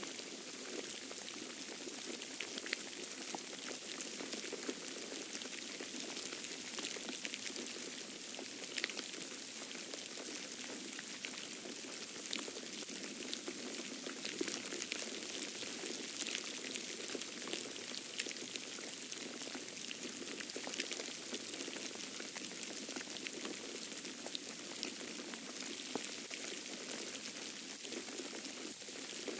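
Falling snow pattering steadily, with many small irregular ticks like light rain.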